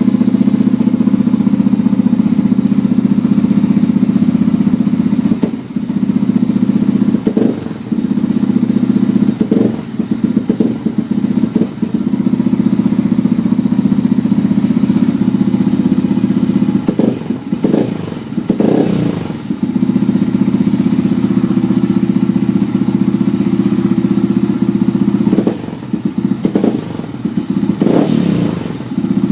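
Yamaha WR125R single-cylinder four-stroke bored out to 182cc, running loud through its exhaust with the dB killer removed: a steady idle broken by short throttle blips in three clusters.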